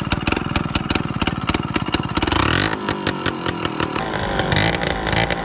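150 cc scooter engine running loud and raspy through an open 'dholki' exhaust with no silencer, a fast even pulse, revving up about two seconds in and then running unevenly.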